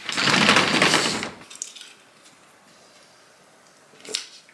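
Window roller shutter being opened, its slats rattling loudly for about a second and a half. A single short knock follows near the end.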